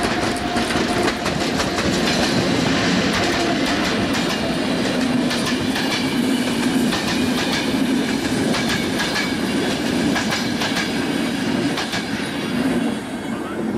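Electric-locomotive-hauled passenger train passing at close range: the coaches roll by with a steady rumble and a run of irregular clicks from the wheels over the rail joints. It fades near the end as the last coach goes by.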